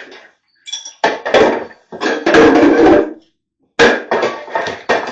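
A run of loud knocks and metallic clanks from hand tools striking engine parts, with a longer, denser stretch of knocking a couple of seconds in.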